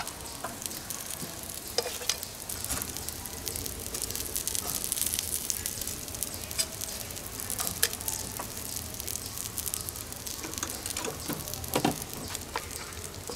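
Pork ribs and grilled potatoes sizzling on a portable gas grill, a steady crackle. A few sharp clicks of metal tongs against the grate and pot.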